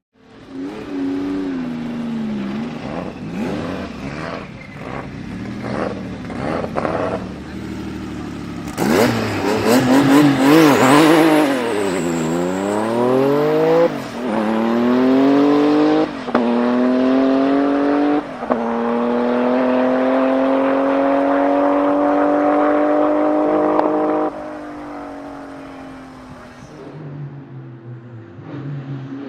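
Tuned Porsche 993 GT2's twin-turbo air-cooled flat-six revving, then accelerating hard: the pitch climbs and drops at three quick upshifts about two seconds apart, followed by a long steady pull in a higher gear. Near the end it lifts off and settles to a lower, quieter run.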